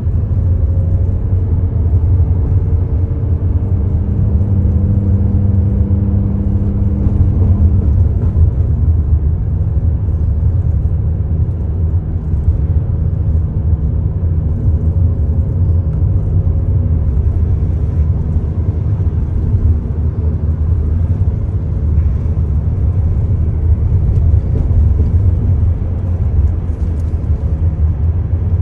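Steady low rumble of a car driving at speed, heard from inside the cabin: engine hum and road noise, the hum shifting slightly in pitch.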